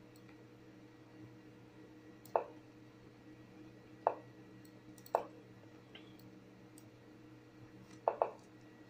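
Lichess move sounds: five short clacks of pieces being played, about a second or two apart, the last two in quick succession near the end, over a faint steady electrical hum.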